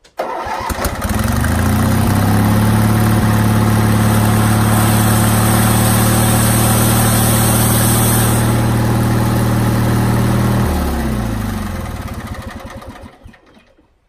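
A 1990-model band sawmill's engine is cranked and catches at once, revs up within a couple of seconds and runs steadily with the band blade spinning on its wheels, a short test run to check the band's tracking. About eleven seconds in it is shut off, and the engine and band wheels wind down with a falling pitch.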